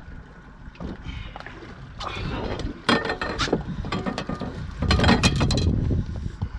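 Fishing reel being cranked, a rapid mechanical clicking in two bursts, one about two seconds in and a louder one about five seconds in.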